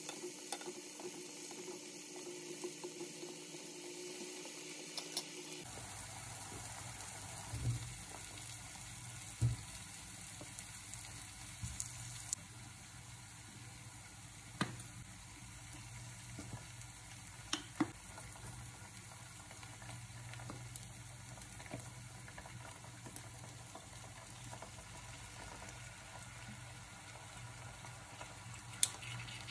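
Sliced mushrooms sizzling gently in a frying pan, with a few sharp taps and clicks scattered through as utensils and food touch the pan.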